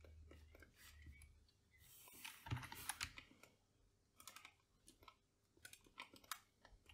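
Faint clicks from a computer keyboard and mouse, scattered through, with a quick run of them about two to three seconds in.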